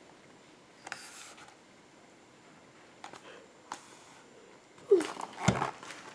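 Faint room tone with a few small ticks, then near the end a louder rustle and bumping of a picture book being handled and lowered, with one soft thump.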